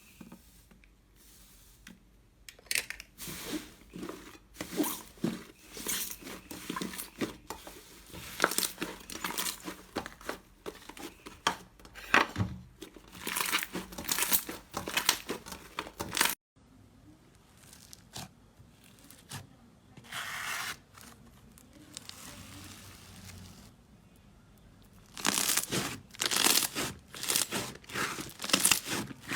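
Slime being squeezed, pressed and stretched by hand, making irregular crackling and popping sounds. The sound cuts off about halfway through and comes back quieter, then grows busier again near the end.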